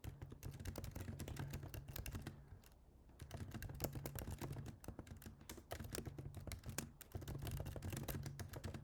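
Fast typing on a computer keyboard, a steady patter of key clicks with a brief pause about two and a half seconds in.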